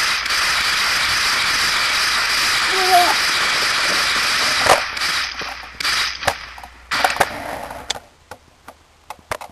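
A loud steady hiss, then from about halfway a run of sharp cracks like gunshots as the hiss dies away, thinning to faint clicks near the end.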